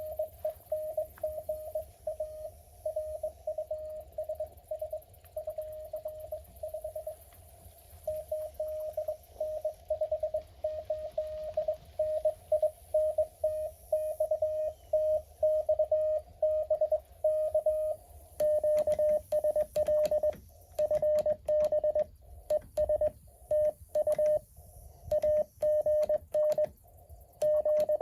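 Morse code tones at about 600 Hz from a Mountain Topper MTR-4B QRP transceiver, keyed in short dots and dashes. About two-thirds of the way in, the tones turn crisper and even in loudness, with light clicks alongside them, like a keyer paddle being worked.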